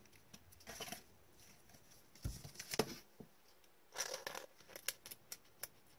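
Faint rustling and light clicks of trading cards in plastic holders being handled and moved, coming in short scattered bursts.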